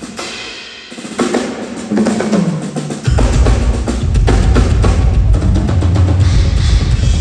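Miked drum kit being played for a sound check. There are scattered hits at first, then from about three seconds in a full, loud groove with a heavy low end.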